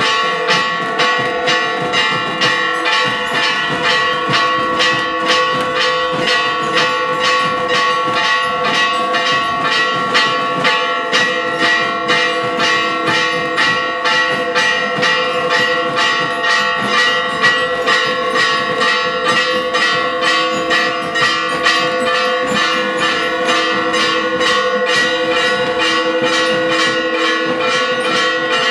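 Church bells ringing a fast, continuous peal: several bells of different pitch struck over and over, their tones ringing on under each new stroke. It is the festive peal that greets a procession as it enters the church.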